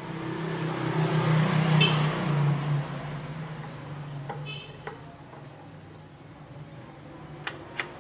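Sewing machine running for about three seconds, a steady hum that swells and then dies away, followed by a few sharp clicks near the end.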